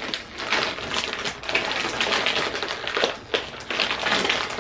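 Crinkly snack packet crinkling and crackling in the hands as it is pulled and twisted to tear it open, a dense run of small crackles.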